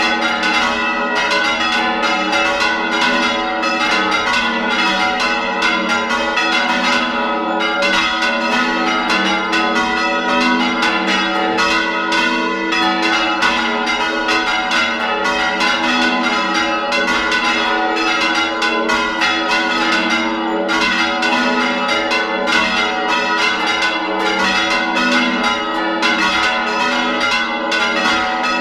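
Church bells rung by hand in a fast, unbroken Spanish-style toque: several bells struck in quick succession, their tones overlapping, heard up close from inside the belfry.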